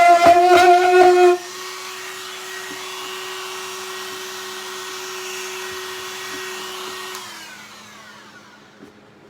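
DeWalt-driven homemade lapidary grinder running with a steady whine, loud for about the first second and a half and then quieter. About seven seconds in it is switched off and winds down, the whine falling in pitch as it coasts to a stop.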